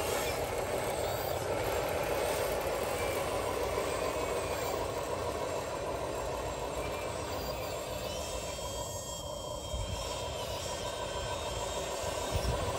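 Radio-controlled scale wheel loader running as it pushes snow and drives: a steady mechanical hum with a thin whine that shifts in pitch as the motors work.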